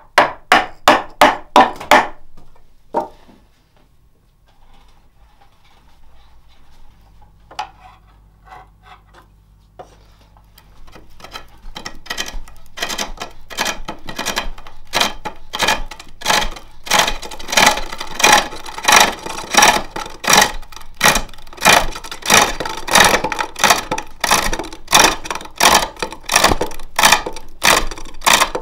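A quick run of sharp knocks, then a spring pole lathe cutting: a hook tool scrapes and shears across the face of a green jacaranda plate blank in a steady rhythm of about one and a half cuts a second, one cut on each treadle down-stroke. The cuts build in loudness from about a third of the way in.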